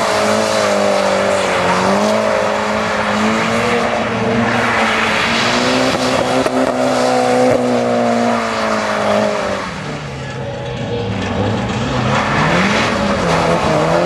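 Mitsubishi Lancer Evolution rally car's turbocharged four-cylinder engine revving up and down hard as the car slides around a cone course. The revs sag around ten seconds in, then climb again.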